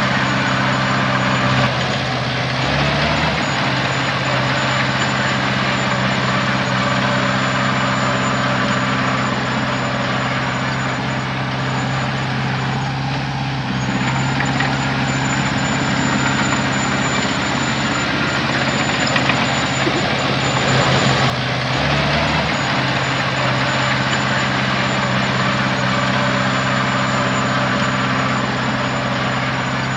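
Heavy diesel engine of earthmoving machinery running steadily, its pitch shifting briefly twice, about three and twenty-two seconds in.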